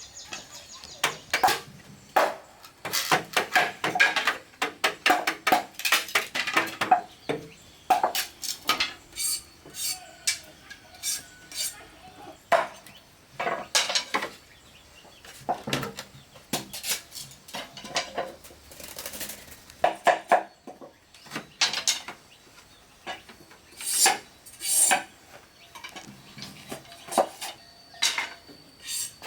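Irregular series of sharp knocks and clinks from hard objects being struck or handled, dozens of them, in uneven clusters with short pauses.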